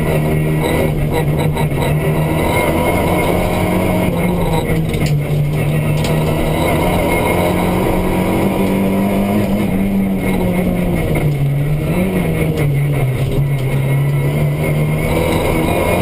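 Turbocharged four-cylinder engine of a Renault Mégane N4 rally car, heard from inside the cockpit, running hard at full load on a stage, its pitch rising and falling as the revs change.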